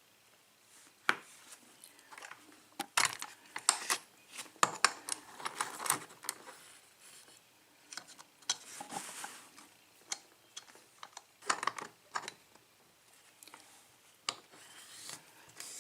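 Scattered light metallic clicks and clinks of a key and a Corbin pin-tumbler cylinder lock being handled.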